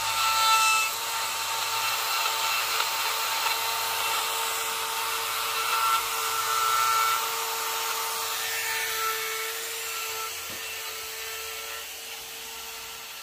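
A power carving tool runs and cuts into wood: a steady motor whine over gritty grinding noise, fading away near the end.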